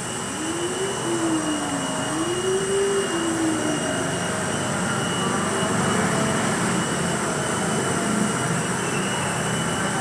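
Air Victor 6608A mini helicopter's motor and rotor whirring steadily. A tone in it rises, dips and rises again over the first few seconds, then evens out.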